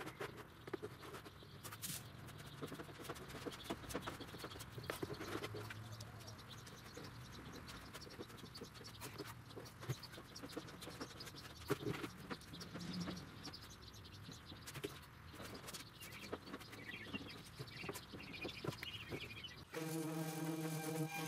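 Plastic spreader scraping and tapping as two-part body filler is mixed on a board and then spread over a steel body panel, making soft irregular scrapes and clicks. Near the end, music comes in.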